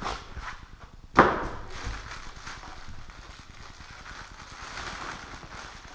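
A styrofoam packing insert is pulled from a cardboard box, with a sharp thump about a second in. Then comes a steady soft rustle of plastic wrapping being handled.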